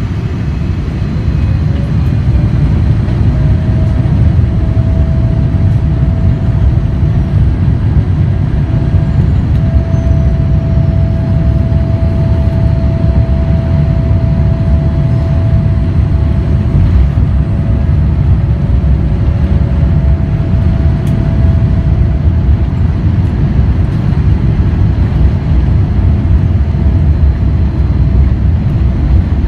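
Boeing 787-9's GEnx-1B turbofans spooling up to takeoff thrust about a second in, a rising whine that settles into a steady tone over a loud, deep rumble, heard from inside the cabin over the wing during the takeoff roll.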